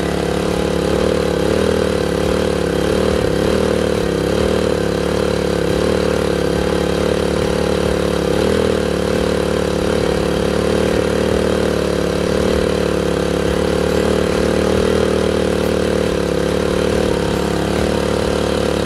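PowerSmart 1500 inverter generator's small engine running steadily, its pitch wavering slightly now and then, while the carburetor idle screw is adjusted to cure an unsettled idle.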